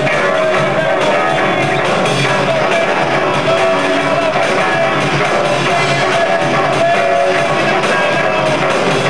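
A rock band playing live and loud, with electric guitars.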